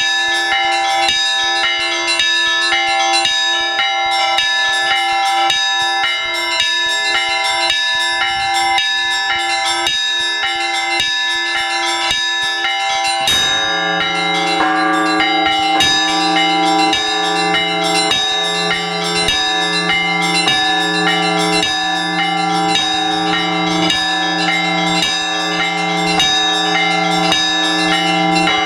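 Orthodox church bells rung from the belfry for the all-night vigil: several smaller bells struck in a quick, busy rhythm. About halfway through, a deeper, heavier bell joins, struck about once a second.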